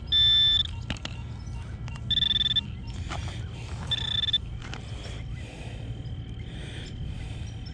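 Three short high-pitched electronic beeps from a metal detector, each about half a second long and about two seconds apart, as it signals metal in the dug spot, with soft rustling noises between the beeps.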